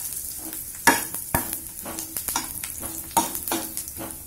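Cumin seeds, a bay leaf and a dried red chilli sizzling in hot ghee in a stainless steel pan, stirred with a steel ladle that clinks and scrapes against the pan many times, loudest about a second in.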